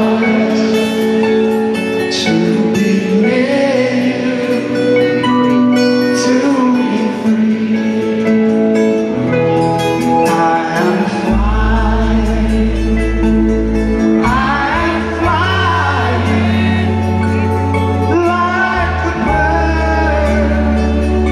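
Live rock band with lead and backing vocals performing a slow ballad, recorded from the audience. A deep bass comes in about halfway through.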